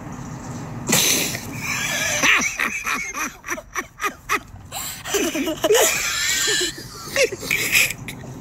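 A young girl laughing hard in repeated bursts of rising-and-falling squeals and quick breathy pulses as alpacas nuzzle at her face.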